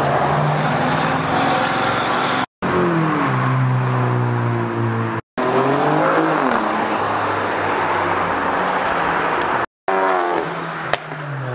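Car engines and exhausts as several cars drive past one after another, revving with pitch rising and falling. The sound cuts off abruptly three times as one clip gives way to the next.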